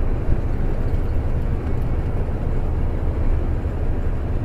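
Steady low rumble of a truck driving at highway speed, engine and road noise heard from inside the cab.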